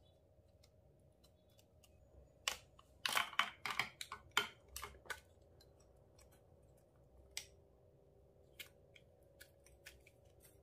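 Sharp plastic clicks and crackles in a dense cluster about two to four seconds in, from a plastic clay container being handled and opened. After that come a few scattered soft clicks as the clay is squeezed in the hands.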